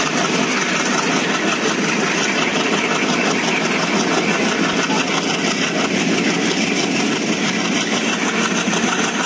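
Diesel locomotive working hard under power, heard from a coach of the train it is hauling. A steady, loud mix of engine noise and the train's running noise, with its heavy black exhaust showing the engine under full load.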